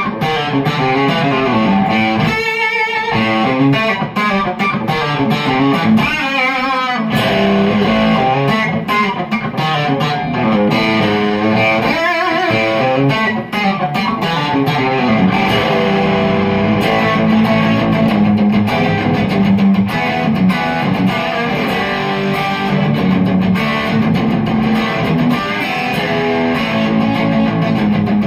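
Electric guitar, a Reverend T-style, played through a Koch Amps "Greg Jr" prototype amplifier in a stream of chicken pickin' country lead lines. A couple of notes a few seconds in are held with a wide, wobbling vibrato.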